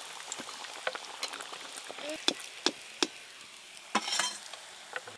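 Breaded fish cutlets deep-frying in hot oil in an aluminium kadai: a steady sizzle, with a metal spatula clicking against the pan half a dozen times. About four seconds in the sizzle briefly swells louder as cutlets are lifted out of the oil on the spatula.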